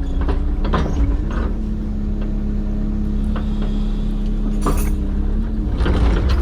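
Excavator diesel engine running with its hydraulics working. A steady humming tone holds from about a second in until near the end, over scattered knocks and cracks that cluster near the end.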